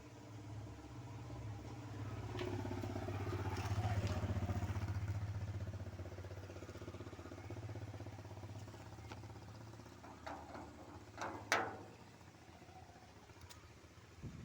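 A low engine drone swells over a few seconds and then fades away, followed by a few sharp knocks, the loudest about eleven seconds in.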